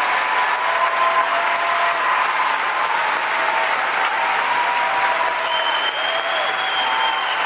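Large arena crowd applauding steadily in an ovation after a figure skating program, with a few faint held tones running through the clapping.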